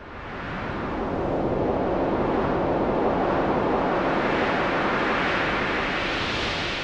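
A steady rushing noise, a wind-like sound effect, swelling in over the first second and then holding at an even level.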